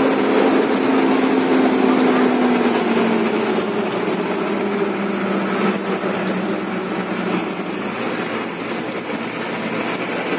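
Bus engine running as the bus drives along a street, heard from inside the cabin over road noise, its hum slowly dropping in pitch.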